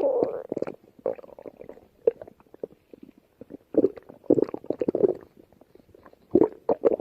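Stomach growling and gurgling in irregular bubbly bursts. There is a big gurgle at the start, a run of rumbles around the middle and another burst near the end, with quiet gaps between.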